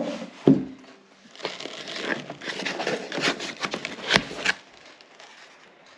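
Plastic packaging crinkling and rustling as an accessory is unwrapped, after a couple of knocks, with a sharp click a little after four seconds in.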